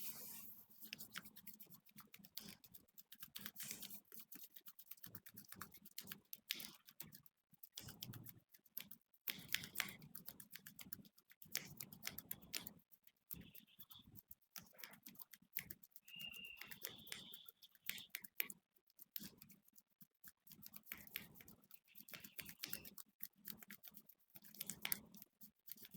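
Hands massaging a head: faint, rapid scratching and crackling of fingers working through hair and over the scalp, going on continuously with short pauses.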